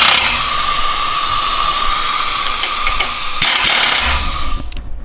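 Pneumatic air ratchet running in one long continuous run: a loud hiss of exhaust air with a steady whine, cutting off shortly before the end.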